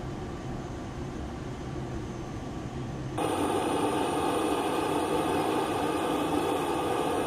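Steady in-flight rumble of an Airbus A400M, heard from the cockpit. About three seconds in it changes abruptly to the louder sound of the A400M's Europrop TP400 turboprop engines running on the ground: a steady engine noise with a high whine.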